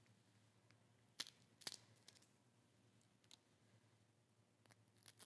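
Near silence with a few faint, sharp clicks and taps from a knife picking meat out of a blue crab's shell: two about a second in, and a few more near the end.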